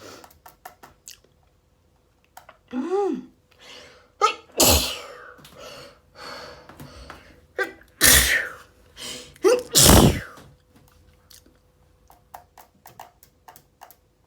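Allergy sneezing fit: a drawn-out 'ah' building up about three seconds in, then three loud, sharp sneezes at roughly four and a half, eight and ten seconds, with short catching breaths between them.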